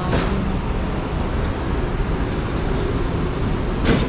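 Hong Kong tram running along its street track: a steady rumble, with a short knock right at the start and another near the end.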